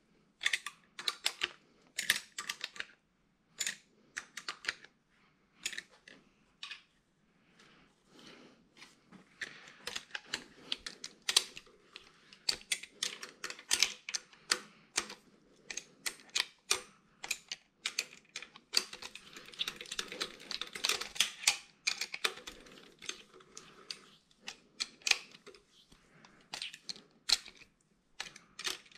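Hand ratchet clicking in quick runs as the main bearing cap bolts on a 2JZ engine block are run down evenly, seating the caps onto their locating dowels. The clicks come in short, scattered bursts at first, then in long fast runs through the middle.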